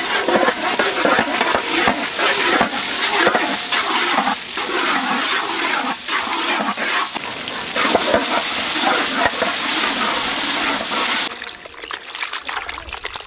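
Tomatoes frying in hot sesame oil, giving a loud, steady sizzle that cuts off suddenly about eleven seconds in.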